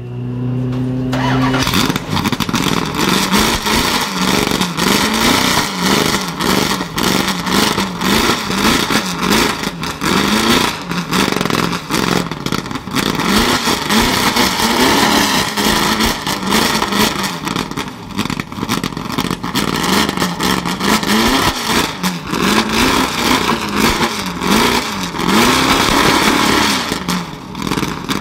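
Ford GT40 Mk II's 7-litre V8 being started: a brief steady whirr of cranking, then about a second and a half in it fires. It is then blipped again and again, revs rising and falling over a rough idle.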